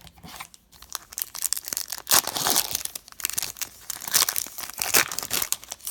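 Foil trading-card pack wrapper crinkling and tearing as it is handled and ripped open by hand, in irregular crackly bursts that are loudest in the middle and again near the end.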